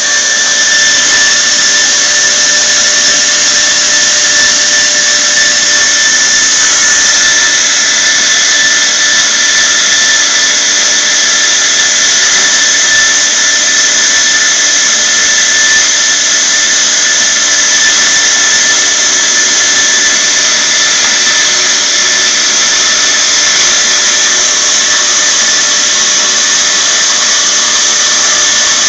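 Band saw machine running steadily: an even, loud hiss with a faint steady whistling tone through it.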